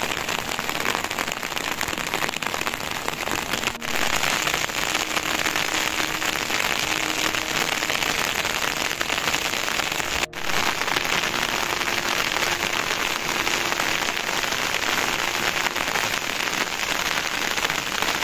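Steady monsoon rain falling, an even hiss of downpour that drops out briefly twice, about four and ten seconds in.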